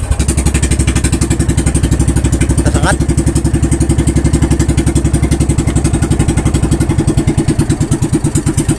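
A small fishing boat's engine running at a steady speed just after being started, with a fast, even chugging pulse; its low hum shifts slightly about seven seconds in.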